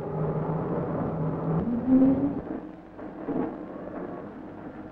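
Construction machinery engine running with a low rumble; its pitch steps up and rises briefly about a second and a half in, then settles to a quieter rumble.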